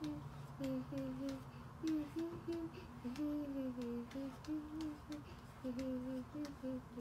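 A young girl humming a wandering tune, short held notes stepping up and down, with faint irregular clicks behind it.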